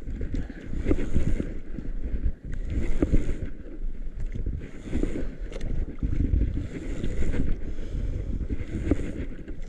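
Wind buffeting the microphone over sea water sloshing against an outrigger boat, a gusty low rumble with a hissing surge every second or two.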